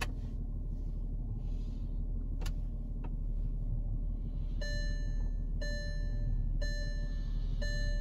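Electronic chime beeping in an even pattern, about one multi-tone chime a second, starting a little past halfway, over a steady low hum. Two short clicks come earlier.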